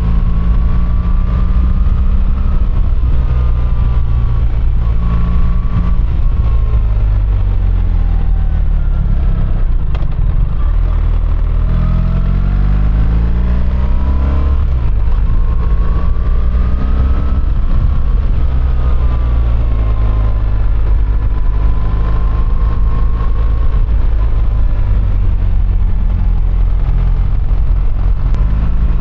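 BMW R1300GS boxer-twin engine under way, its revs rising and falling with the road, then climbing in several quick steps around the middle as it accelerates through the gears. A heavy wind rumble on the microphone sits underneath.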